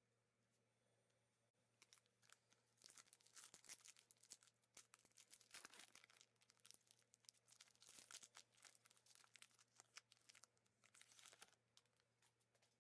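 Foil-lined trading card pack being torn open and crinkled: a faint, dense run of crackling and tearing that starts about two seconds in and stops near the end.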